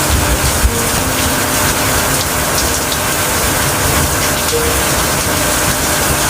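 Steady rain: an even, dense hiss with scattered sharper drop hits.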